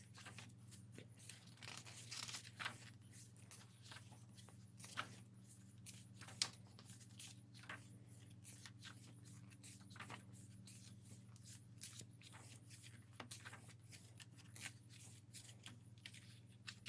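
Faint paper rustling and soft clicks of a photo book's pages being handled and turned, scattered through, a few a little louder, over a low steady hum.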